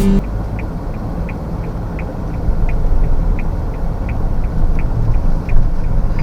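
Low road rumble inside a moving car, with a faint regular ticking about three times a second.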